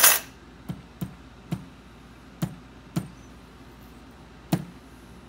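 Small hammer tapping on the metal works of an antique rim lock: one sharp metallic strike at the start, then about six lighter, unevenly spaced taps.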